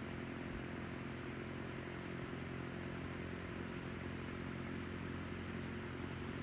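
Hunter CG16 16-inch commercial-grade table fan running steadily: an even motor hum under the rush of air from its blades.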